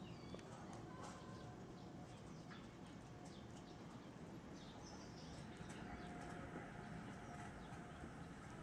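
Quiet outdoor ambience with a low background hum and faint, scattered bird chirps. A faint steady tone comes in about halfway through.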